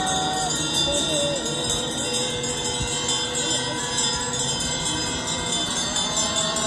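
Tibetan Buddhist hand bells (drilbu) ringing continuously in a monks' procession, a steady jingling, with long held notes of a slow tune sounding over them and gliding between pitches.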